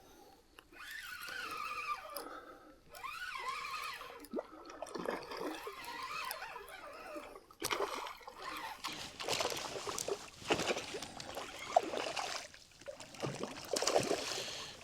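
Water splashing and trickling as a small hooked rainbow trout thrashes at the surface while being played toward the kayak. Some faint wavering high tones come in the first few seconds, and the splashing gets busier and louder in the second half.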